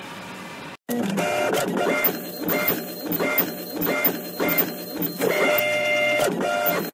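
Steady running noise of the UV printer for under a second, then a cut to a logo sting made of inkjet-printer sounds: a rhythmic mechanical shuttling with ringing tones, about three pulses a second, stopping abruptly.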